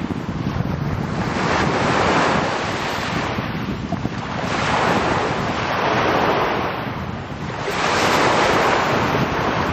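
Small waves breaking and washing up a pebble beach at the shoreline, the surf surging about every three seconds.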